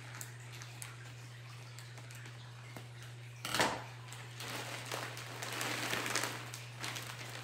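Plastic mailer package being opened by hand: one sharp tearing crackle about halfway through, then crinkling and rustling of the plastic wrapping.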